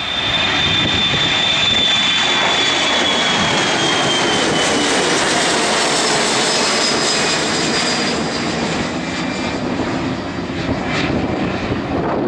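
Boeing 737's CFM56 turbofan engines at takeoff thrust as the jet climbs out past, a loud steady jet noise with a high fan whine that slowly falls in pitch as it moves away.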